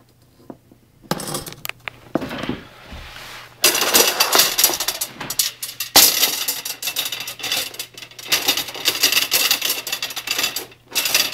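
Coiled copper tubing being turned and worked by hand, metal clinking, rattling and scraping against metal as a thinner tube is fed through the larger coil to make a heat exchanger. A few knocks start about a second in, and the rattle turns dense from about three and a half seconds on, with a brief pause near the end.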